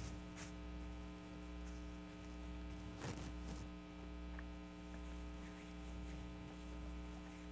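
Steady electrical mains hum with a stack of overtones, at a low level, with a couple of faint rustles about three seconds in.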